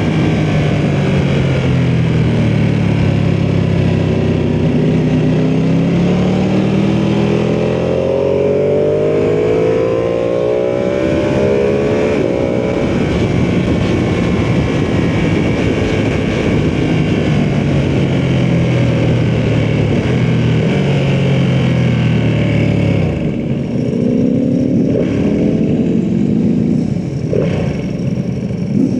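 Ducati sportbike engine under way: the revs climb for about ten seconds, ease off and hold steady, then fall off sharply about three-quarters of the way through and climb again, with a short blip near the end.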